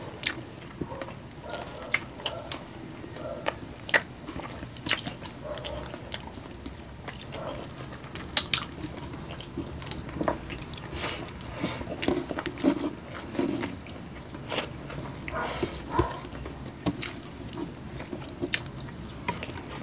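Close-up eating of chicken feet adobo by hand: wet chewing and biting with frequent sharp, irregular clicks and smacks as the skin is pulled from the small bones.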